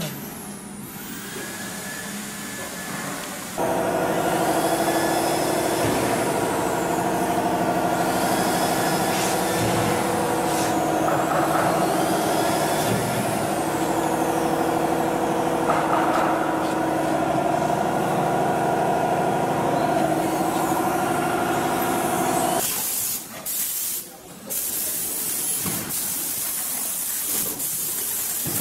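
A steady machine drone made of several held tones starts abruptly a few seconds in and cuts off abruptly about two thirds of the way through. A hissing noise with a few brief dropouts follows.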